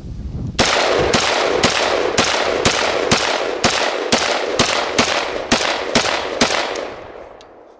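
Rock River Arms PDS piston-driven AR-style rifle fired semi-automatically in a quick string of about a dozen shots, roughly two a second, each shot ringing out. It is firing old, corroded 5.56 rounds with tracers mixed in, and it cycles them all.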